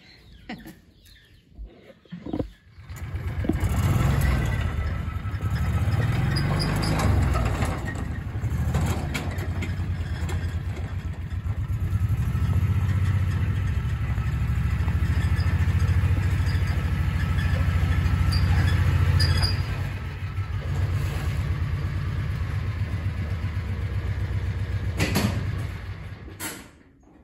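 Engine of a Kawasaki side-by-side utility vehicle running at low speed with a trailer hitched behind, its pitch rising and falling a little; it comes on about three seconds in and cuts off shortly before the end.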